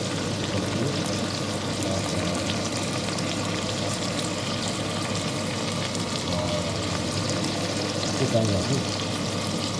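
Meat frying in a hot pan: a steady sizzle as the chilli dish cooks through.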